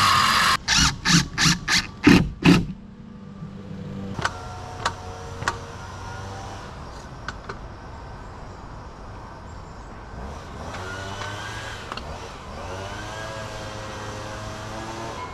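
A run of about six loud knocks in quick succession, then three fainter sharp knocks that ring briefly.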